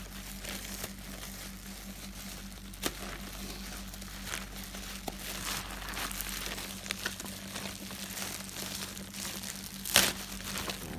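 Plastic packaging, a courier poly bag and bubble wrap, crinkling and rustling as hands pull wrapped books out of the parcel. Scattered sharp crackles run through it, with one louder crackle near the end.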